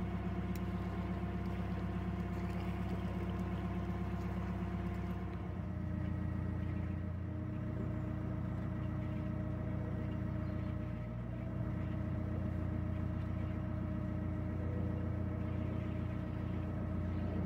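A narrowboat's inboard diesel engine running steadily while the boat cruises, a low hum with a steady drone on top. The engine note changes about five seconds in, then holds steady again.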